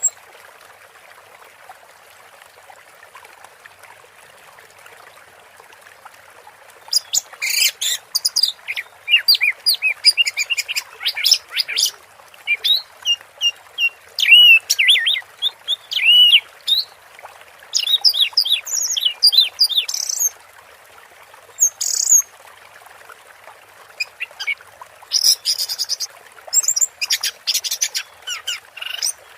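Orange-headed thrush singing long runs of rapid, varied whistled phrases over a steady hiss. The song begins about a quarter of the way in, breaks off for a few seconds past the middle, then resumes.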